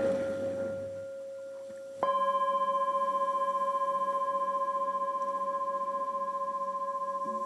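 Singing bowls ringing: one bowl's steady tone carries on, then about two seconds in another bowl is struck and rings on with several overtones, decaying slowly with a gentle wobble.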